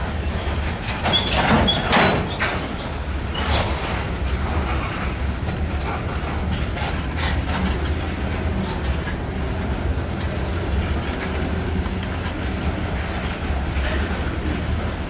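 Covered hopper freight cars being shoved past by a locomotive, with a steady rolling rumble and wheels clacking. A cluster of sharp clacks and a brief wheel squeal come about one to two seconds in, then fainter clacks now and then.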